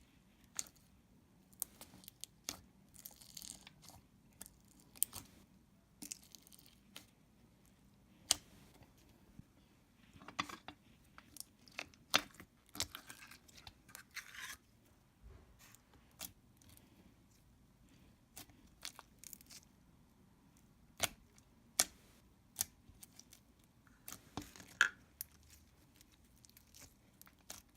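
Slime being squished, poked and stretched by hand: irregular sticky clicks and pops, with a few short crackly, tearing stretches.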